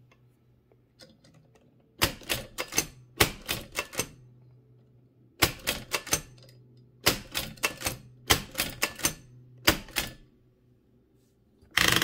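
A 1925 AEG Mignon 4 index typewriter being typed on: clusters of sharp mechanical clacks as the impression key prints a character and the spacebar is pressed several times, in groups about every second and a half, with short quiet pauses between while the pointer is moved to the next letter.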